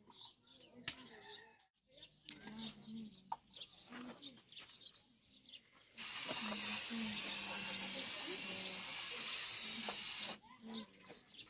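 Aerosol spray-paint can spraying in one continuous hiss of about four seconds, starting about halfway in. Before it, faint bird chirps.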